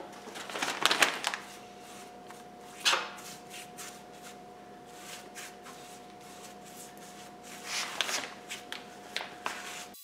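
Clear plastic bag crinkling and rustling in bursts as it is handled around the tank's filler neck. The bursts come about a second in, once near three seconds, and several times near the end, over a faint steady tone.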